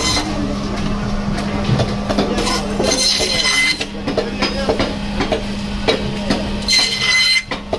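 Electric band saw running with a steady hum while katla carp is pushed through its blade. Twice, a little over two seconds in and again near the end, the blade rises into a high squeal as it cuts through the fish, with scattered knocks of the pieces on the steel table.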